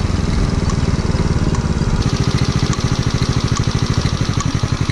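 Chinese-made Cub-type single-cylinder engine in a Honda Little Cub, settling into a steady idle about two seconds in, with a light regular ticking on top. The tick is valve tappet noise that was not there when the engine was new, which the rider takes as a sign the valve clearance needs adjusting.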